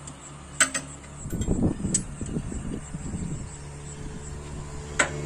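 JCB backhoe loader's diesel engine running steadily, louder and uneven for a stretch in the middle, with a few sharp metallic clanks, the loudest about half a second in and near the end.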